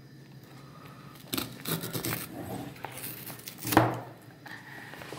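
Cardboard camera box being handled and opened: rustling and a tearing sound of packaging, with a sharp thump about four seconds in.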